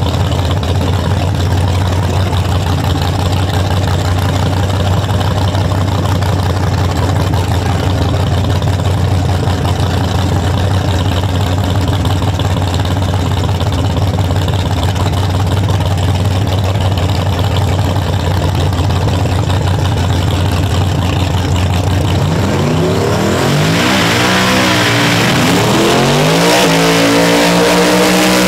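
A loud steady drone with a hiss for most of the stretch, then near the end a car engine revving, its pitch swinging up and down and then climbing.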